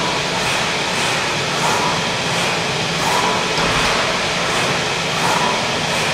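Zünd G3 digital flatbed cutter at work cutting a pre-printed sheet: a steady, loud mechanical rushing noise, with a short whirring note coming back about once a second as the cutting head moves.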